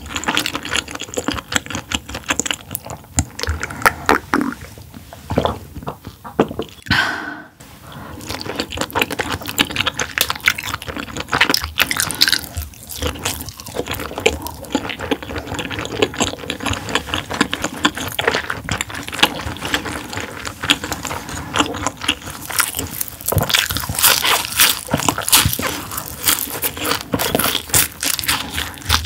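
Close-up eating sounds: chewing and crunching with wet, liquid mouth noises and utensils scraping, a dense run of small sharp clicks throughout.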